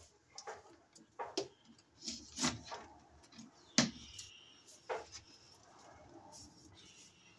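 Handling noise from working 12/2 electrical cable and its wires into a metal breaker panel: a string of sharp clicks and taps with some rustling, the loudest a little under four seconds in, dying down after about five seconds.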